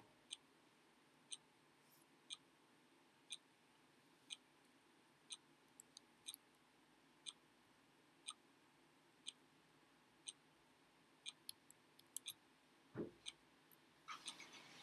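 Near silence with faint, sharp ticking about once a second, like a clock, plus a few extra clicks in between and a short, soft low sound near the end.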